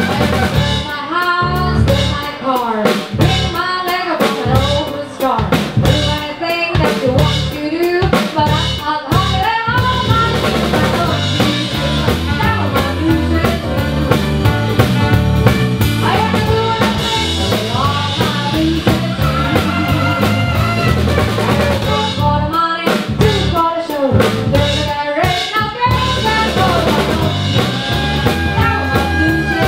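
Live band playing upbeat dance music, a drum kit keeping a steady beat under a bending melody line.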